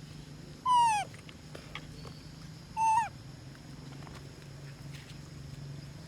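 A monkey giving two short high calls, each falling in pitch at the end, about two seconds apart.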